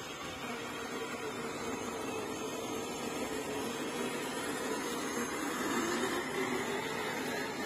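Electric motors and geared drivetrains of 1/10-scale RC crawlers whirring steadily as they wade through shallow water, growing a little louder about six seconds in as one passes close.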